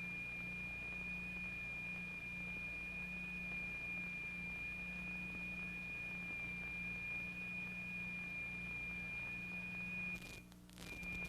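A steady, high, pure electronic tone, the test note driving the vibrating plate, over a low electrical hum. It cuts out for about half a second near the end with a click, then resumes at the same pitch.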